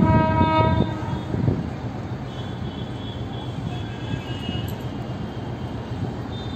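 Train horn of an approaching Indian Railways locomotive: one loud, multi-toned blast that cuts off under a second in, followed by a steady low rumble of the train.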